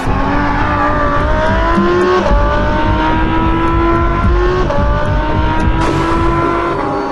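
Audi R8's V10 engine accelerating hard through the gears: the pitch climbs steadily in each gear and drops back at three upshifts, about one, two and four and a half seconds in.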